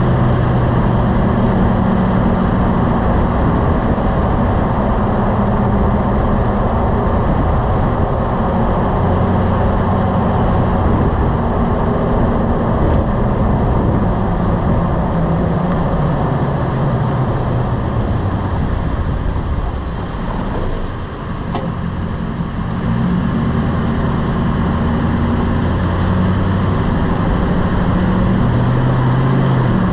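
Lifted pickup truck driving: steady engine hum and road noise. The sound drops for a few seconds a little past the middle, then comes back up as the engine pulls again.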